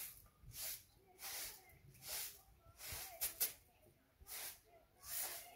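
Short-handled grass broom sweeping a packed-earth yard: a run of short swishing strokes, about one or two a second.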